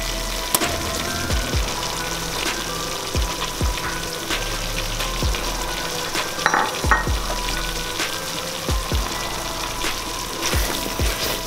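Curry sauce sizzling in an aluminium pot while raw chicken pieces are added and stirred in with a wooden spatula. Scattered knocks and a brief clatter about six and a half seconds in.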